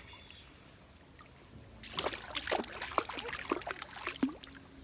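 A baby's feet kicking in swimming-pool water: a quick run of small splashes that starts about two seconds in.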